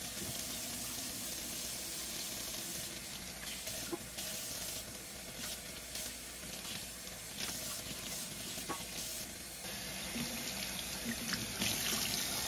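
Kitchen faucet running steadily into a stainless steel sink, the stream splashing through a paintbrush's bristles as latex stain is rinsed out of it.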